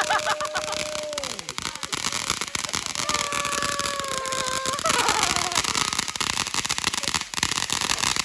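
Consumer firework fountain going off: a steady hissing spray full of dense crackling, with a held tone about a second in and again around three to five seconds in.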